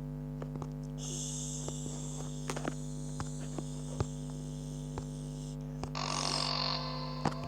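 A steady electrical-sounding hum with several pitched layers. Over it come long bands of high hiss, a first one about a second in and a second one near the end, with scattered sharp clicks.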